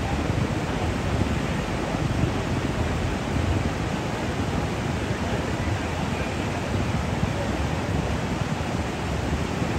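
Whitewater rapids rushing steadily, a constant even wash of water noise.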